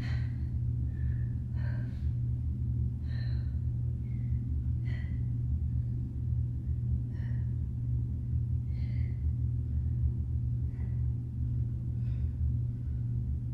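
A steady low hum, with faint short sounds of a person exercising on a mat coming roughly once a second.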